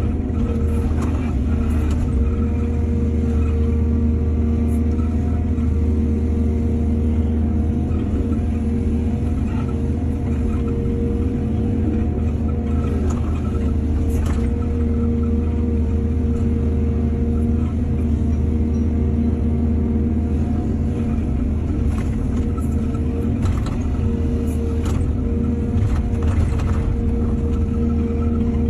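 Heavy diesel engine of an excavator running steadily, with a few sharp knocks scattered through.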